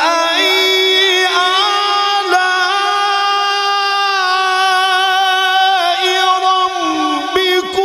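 Quran recitation (tilawat): a man's voice holds one long, drawn-out melodic note, its pitch stepping slightly, with a short dip and break near the end.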